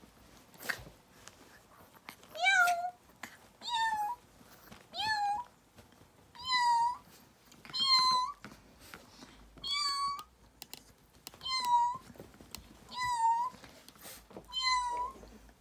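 Yorkshire terrier vocalising in a string of about nine short, high-pitched whining howls, one roughly every second and a half, starting about two seconds in.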